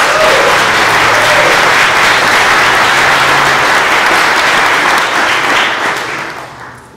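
Audience applauding loudly, dying away over the last second or so.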